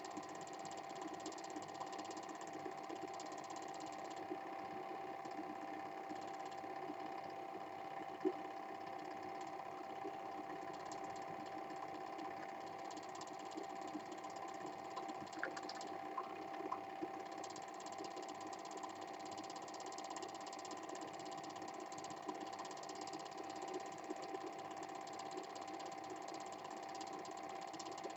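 Cine film projector running: a steady mechanical whirr with a constant hum and a fast, even clatter from the film transport, with a single sharp click about eight seconds in.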